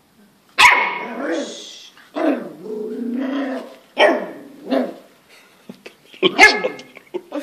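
Puppy barking in short, sharp barks, with one drawn-out bark lasting over a second about two seconds in.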